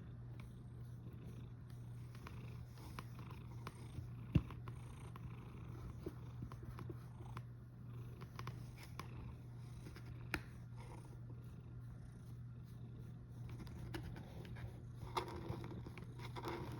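A domestic cat snoring, a steady low rumble, with two sharp clicks about four and ten seconds in.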